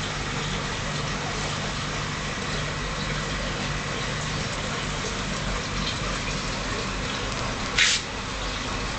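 Aquarium filter and pump running: a steady rush of circulating water over a low motor hum, with a brief louder burst of noise near the end.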